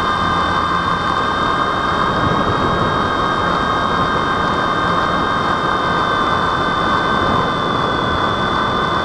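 Twin motors and propellers of an RC airplane running steadily at cruise, heard from the plane's own onboard camera: an even, high-pitched whine over the rush of air past the airframe.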